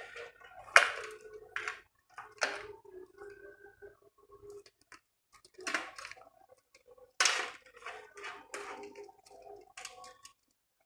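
Cables and plastic connectors being handled inside a PC case: irregular clicks and rustles, about a dozen, with the loudest a little over seven seconds in.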